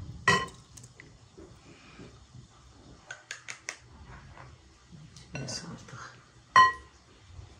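Kitchen utensil clinking and scraping against a bowl: a ringing clink about half a second in, a quick run of light taps around the middle, some scraping, and a loud ringing clink near the end.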